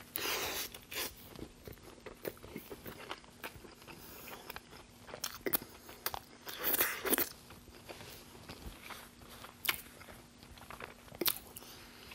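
A crunchy bite into a Burger King double Whopper, close to the microphone, then chewing with wet mouth clicks and a second louder burst about seven seconds in.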